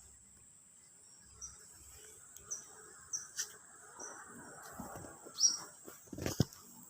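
A steady high insect drone, like crickets, with short high bird chirps about once a second. There is some rustling and a sharp knock near the end.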